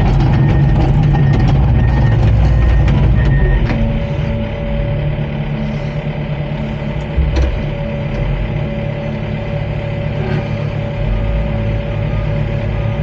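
Komatsu D39PX bulldozer's diesel engine running under work, with a back-up alarm beeping steadily for the first few seconds. About four seconds in the beeping stops and the engine drops to a lower, steadier note.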